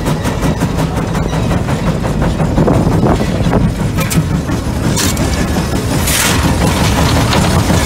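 Case 150 steam traction engine running as it drives, a steady heavy rumble with rapid regular clanking that fades after the first second. Two short bursts of hiss come about five and six seconds in.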